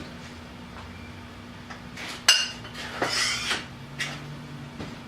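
Metal hand tools clanking: a quiet stretch, then a sharp clank about two seconds in, a short rattle of metal on metal, and another clank.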